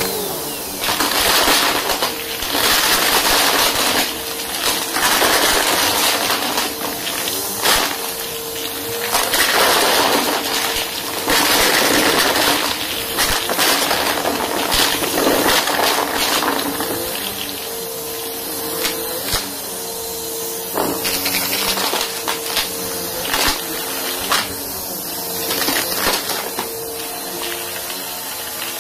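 Bissell upright vacuum cleaner running on carpet with a steady motor whine, surging loudly with rushing and crackling as it sucks up crunchy debris. The surges ease off about two-thirds of the way through, leaving the motor running with occasional sharp pops.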